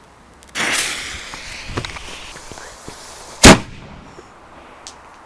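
Fireworks going off. A sudden burst about half a second in trails off over about a second, with a few faint cracks after it; then one sharp, loud bang about three and a half seconds in.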